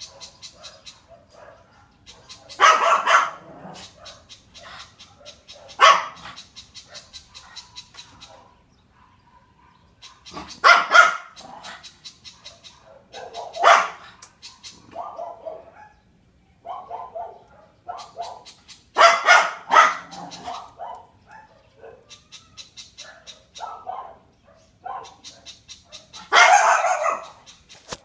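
A dog barking in loud single barks or short runs every few seconds, with softer barks in between. In the first several seconds a fast, high ticking chatter runs between the barks.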